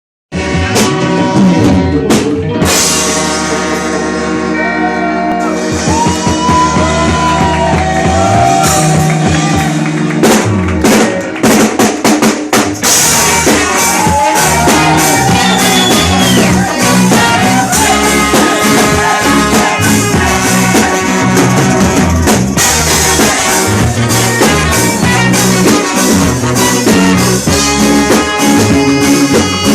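Music with a drum kit and singing, played loud over a sound system.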